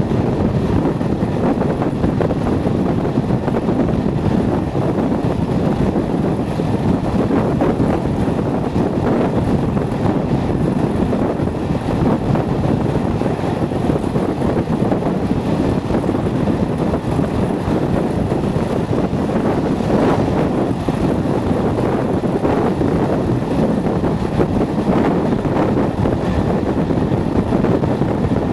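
Steady rush of wind on the microphone from an open carriage window at speed, over the running noise of the train and the engine note of the hauling Class 37 diesel locomotive 37405 with its English Electric V12.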